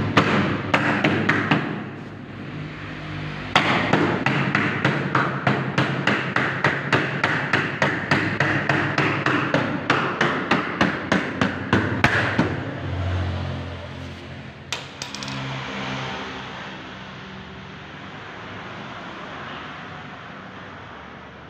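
A small hammer tapping on a UPVC door frame. There is a quick run of taps, then an even series of about three to four hard taps a second for roughly nine seconds, which stops about twelve seconds in.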